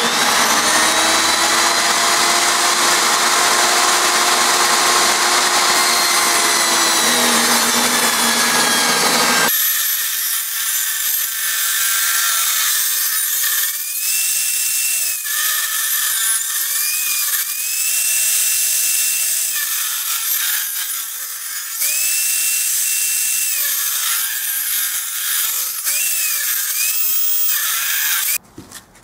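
Table saw ripping a log lengthwise, the blade and motor running hard with the pitch sagging under load and recovering again and again. The sound changes abruptly about a third of the way through and cuts off suddenly near the end.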